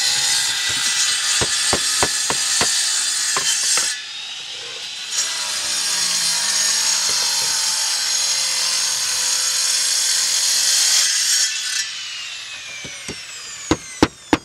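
Power saw with a diamond blade cutting concrete roof tile: a steady high grinding hiss that pauses about four seconds in, starts again, then cuts off and whines down near the end. Light hammer taps are heard during the first cut, and a quick run of hammer blows near the end as a tile is nailed down.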